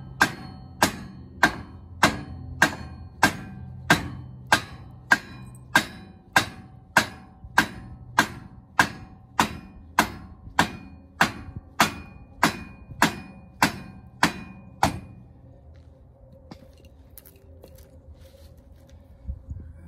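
Shop hammer striking a wooden block to drive a steel receiver hitch tube sideways through its mounting bracket. There are about twenty-five steady blows, a little under two a second, each with a brief ring, and they stop about fifteen seconds in.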